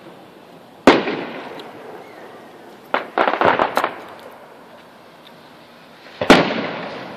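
Aerial firework shells bursting at a distance. A sharp boom comes about a second in and trails off, then a quick run of crackling pops, then another boom near the end.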